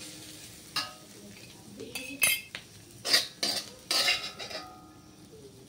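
Metal spatula scraping and clanking against a wok as stir-fried cassava leaves are turned, with the burner switched off so there is hardly any sizzle. A handful of separate scrapes and knocks with short pauses between.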